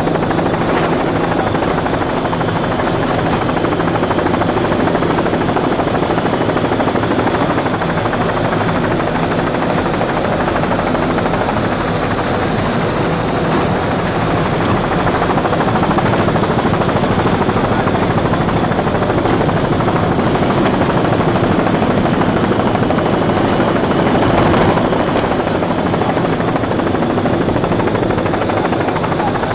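Steady, loud mechanical engine drone with no break, swelling briefly about 24 seconds in, over a faint high whine.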